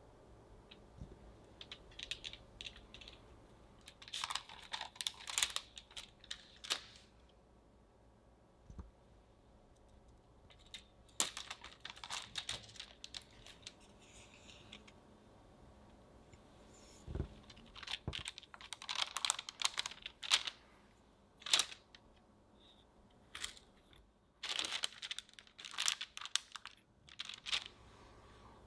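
Metal cookie stamp with a wooden handle being pressed and wiggled into rolled cookie dough on parchment paper: several clusters of light clicking and rustling with quiet gaps between them, and one dull thump about two-thirds of the way through.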